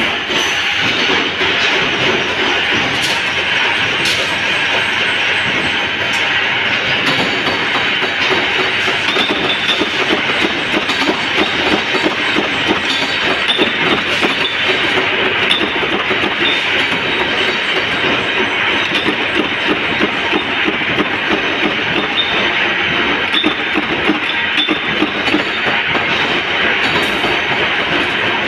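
Flywheel-driven mechanical power press running and punching steel sheet, a steady, loud, rapid metallic clatter.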